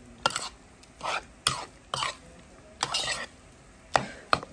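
Metal spoon stirring and scraping grapefruit pulp in a ceramic bowl: irregular sharp clicks of the spoon against the bowl, mixed with short wet scraping bursts.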